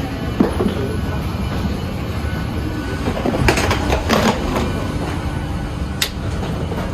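Boeing 737-800 cabin at the gate: a steady low hum of the air conditioning with knocks and clatter from boarding, including a burst of rattling about halfway through and a sharp click near the end.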